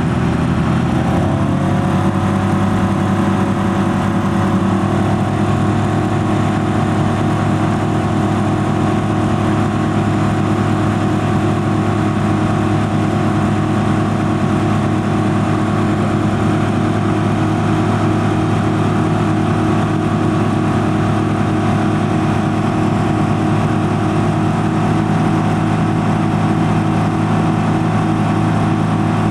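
Europa light aircraft's piston engine and propeller droning steadily in flight, heard from inside the cabin. Its note shifts slightly about a second in and again around five seconds in, then holds steady.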